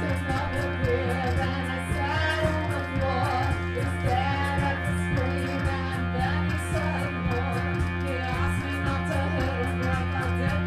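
Small rock band playing live: a woman singing over electric guitar and keyboard, with a steady beat.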